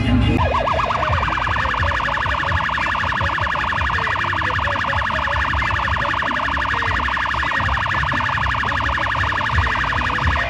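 Electronic siren tone warbling rapidly and steadily, starting about half a second in as the music cuts off.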